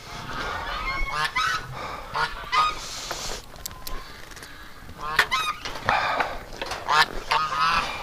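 Domestic geese honking, a string of short calls one after another, thinning out around the middle and picking up again after about five seconds.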